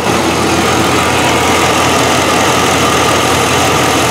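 The 4.8-litre V8 of a 2004 Chevrolet 1500 idling steadily, heard close up in the engine bay. A vacuum leak at the evaporative purge valve makes a sucking sound there, which the mechanic hears by ear but doubts the microphone picks up.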